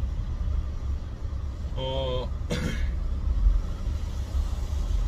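Low, steady vehicle rumble inside a truck cab, with a short voiced sound about two seconds in followed by a brief cough.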